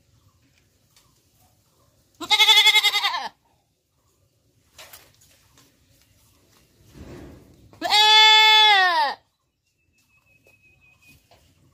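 Goat bleating twice: a short wavering bleat about two seconds in and a longer, steadier bleat about eight seconds in.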